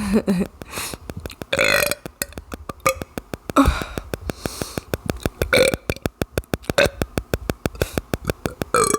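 A person burping on command, a series of separate burps a second or two apart; the first falls in pitch.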